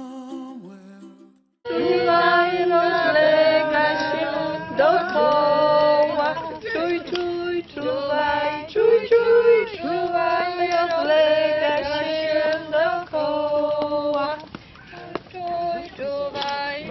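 Ukulele music fades out in the first second or so; then, after a brief gap, a group of voices sings a song together in phrases.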